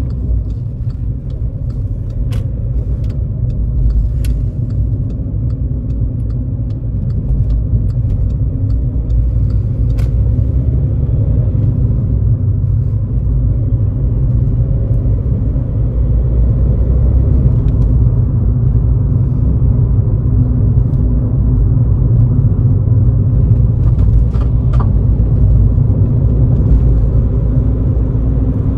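2011 Skoda Fabia's 1.6 TDI four-cylinder turbodiesel running under way, with tyre and road rumble, heard from inside the cabin. The rumble slowly grows louder over the stretch, and there are a few faint clicks.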